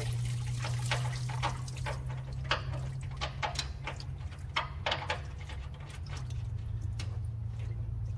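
Diesel fuel pouring and splashing from a truck fuel tank's outlet into a plastic tub while a valve is threaded on, the stream thinning to scattered drips and splashes after about two seconds. A steady low hum runs underneath.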